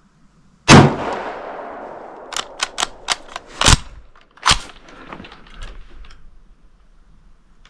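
A single shot from a Steyr Mannlicher M95M straight-pull rifle chambered in 8mm Mauser, with a long echoing tail. It is followed by a quick run of metallic clicks as the straight-pull bolt is worked, and another sharp crack about four and a half seconds in.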